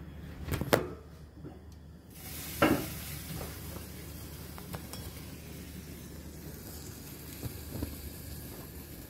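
A pot of coconut milk coming to the boil on a gas stove, hissing steadily as it is stirred with a wooden spoon. Two sharp knocks from the pot or spoon in the first three seconds.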